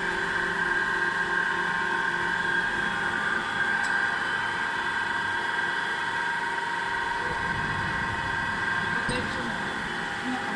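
YAN28 hydraulic press's hydraulic power unit running, a steady high-pitched whine with a constant hum beneath it.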